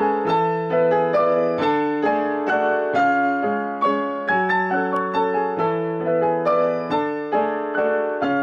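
Background music: a piano playing a steady stream of notes, each struck and fading.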